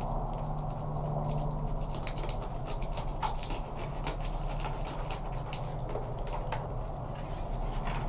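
Fillet knife cutting through a sheepshead's scales and skin along the head and back, making scattered light clicks and scrapes over a steady low hum.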